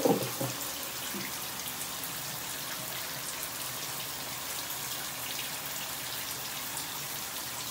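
Shower water running steadily, splashing onto a dog's wet coat and the tiled floor during a bath. A short louder sound sounds right at the start.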